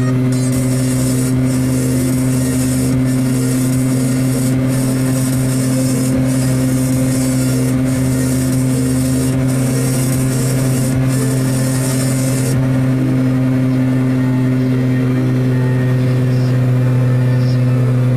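Piaggio Ape 50's small two-stroke engine running at a steady cruising speed, a constant low drone. A high hiss over it drops away abruptly about two-thirds of the way through.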